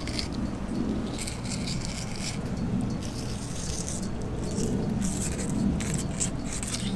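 Fillet knife cutting along the back of a large mahi-mahi: several scraping passes as the blade slices through flesh toward the spine. There is a steady low rumble underneath.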